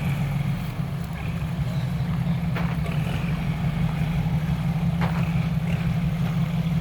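Heavy construction machine's diesel engine running steadily with a deep, even drone, with a couple of faint knocks about a third and three quarters of the way through.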